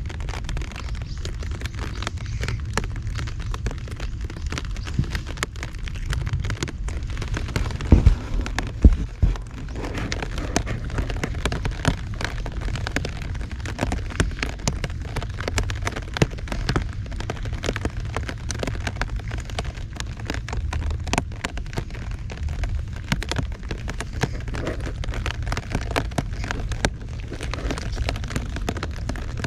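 Heavy rain with a dense patter of drops hitting close by over a low, steady rumble. Two loud thumps come about eight and nine seconds in.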